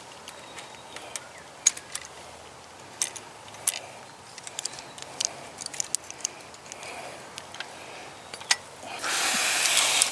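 Barbed wire and hand fencing tools being worked while the wire is tightened: scattered, irregular metallic clicks and clinks, with a brief rush of noise about a second long near the end.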